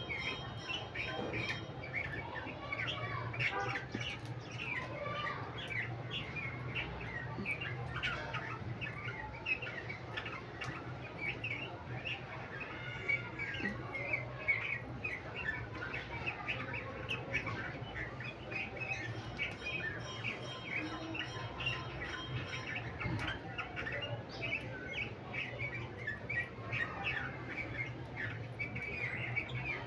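Lovebird chirping: many short, high chirps in quick succession, over a steady low hum.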